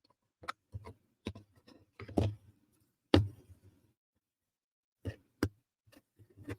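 Wooden puzzle pieces clicking and knocking as they are handled and fitted together: about a dozen short, sharp taps, the loudest about three seconds in, with a pause of over a second in the middle.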